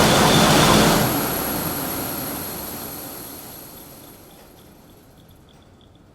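Lottery draw machine set going at the press of its button: a loud whirring rush that holds for about a second, then dies away steadily over the next few seconds as the machine runs down.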